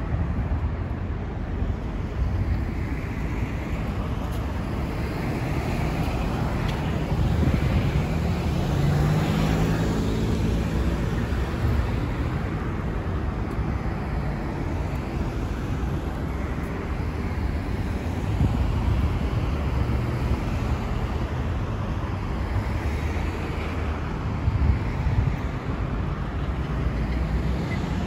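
Steady city road traffic: car engines and tyre noise from vehicles passing on a multi-lane road. Around ten seconds in, one engine rises in pitch as it speeds up.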